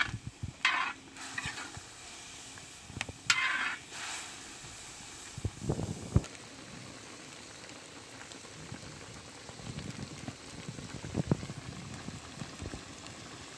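Beef tripe bubbling and sizzling in liquid in a wide steel pan over a wood fire, as a steady hiss. There are a few short scrapes and knocks of the stirring spatula in the first six seconds.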